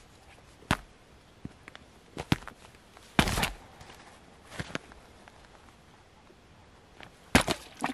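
A boot stamping on thin shore ice, which cracks under it: a string of sharp cracks and knocks, a longer crunch about three seconds in, and a quick cluster of loud cracks near the end.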